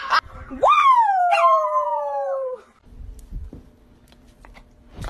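Dog howling: one long howl that rises sharply in pitch, then slowly falls away over about two seconds. A faint low steady hum follows.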